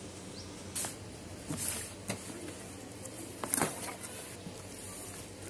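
Subwoofer packaging being handled during unboxing: a few sharp clicks and short rustles over a faint steady hiss, the loudest about three and a half seconds in.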